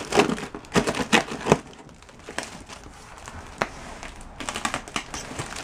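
A box being opened and its contents handled: sharp clicks and knocks with rustling, busiest in the first second and a half, then quieter with a few more knocks.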